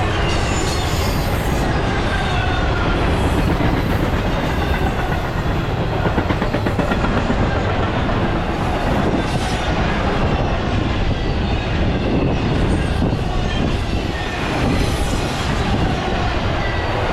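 A long intermodal freight train rolls steadily past, its steel wheels clacking over the rail joints with faint wheel squeal as it climbs a steep grade.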